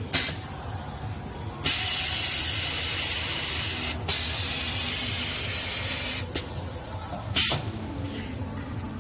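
Semi-automatic toilet-roll bag packing and sealing machine running: a steady low machine hum with a few sharp clacks of its mechanism, the loudest past the middle. A long hiss of compressed air starts about one and a half seconds in and lasts several seconds, typical of the machine's pneumatics.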